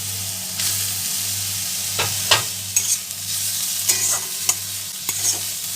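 Chopped onion, tomato, capsicum and grated carrot sizzling in hot oil in a kadai, stirred with a few sharp scraping knocks against the pan.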